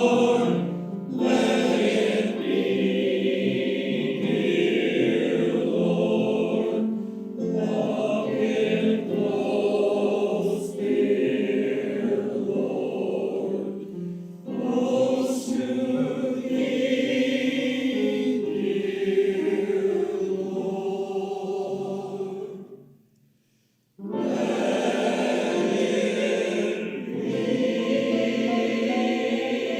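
Choir singing a hymn in long phrases. The singing fades out briefly about 23 seconds in, then starts again.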